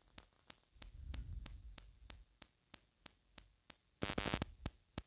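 Faint stirring of the masala in a pressure cooker, with a short scrape just after four seconds and a low rumble near the start. Under it runs a steady faint ticking, about three ticks a second.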